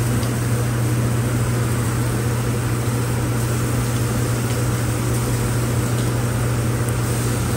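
Steady low machine hum of a restaurant kitchen's ventilation and equipment, with chicken breasts grilling on a char-broiler. Metal tongs click faintly a few times as the pieces are turned.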